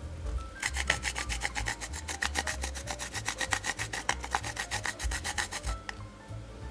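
Chocolate rubbed against a flat handheld metal grater: a fast, even run of short rasping strokes that starts about half a second in and stops about a second before the end.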